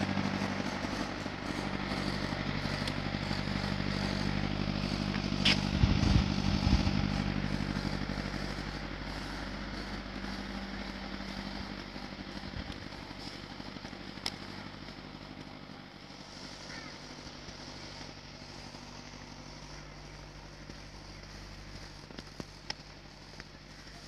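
Motorcycle engine running at a steady pitch, gradually fading away over the first two-thirds, with a brief low thump of wind or handling on the microphone about six seconds in.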